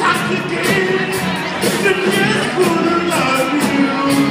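Live soul band playing, with singing over a steady beat in a large hall.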